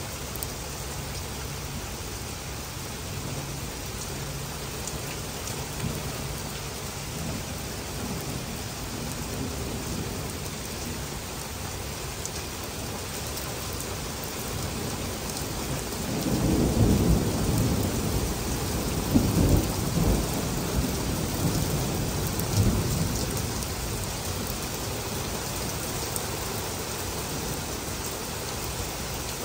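Heavy rain falling steadily, with a roll of thunder rumbling for several seconds past the middle, swelling in a few peaks before dying away.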